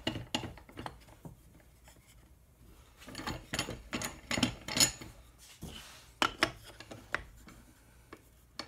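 Wooden picture-frame moulding knocking and sliding against a cast-iron corner clamp, with rubbing and clicking as the clamp's spoked handwheel screw is turned to close it on the corner. The sounds come in bursts of clicks and scrapes, with a lull between.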